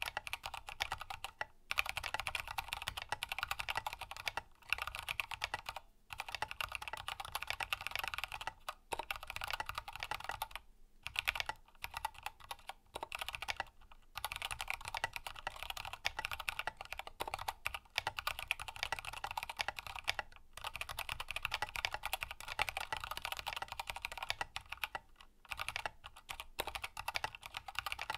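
Continuous, fast typing on a Grid 600 mechanical keyboard with lubed Kailh Box Black linear switches, a carbon fiber plate and Signature Plastics SA keycaps, recorded close up. The keystrokes run in quick clusters, broken by a few brief pauses.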